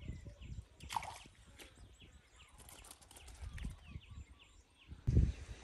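Outdoor ambience with a series of short, falling chirps from a small animal and scattered low knocks; about five seconds in, a louder low rumbling noise begins.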